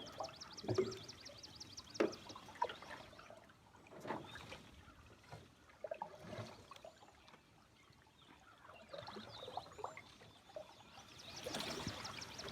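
Water trickling and splashing, with many short irregular plops. A bird sings a fast trill of high notes at the start and again near the end.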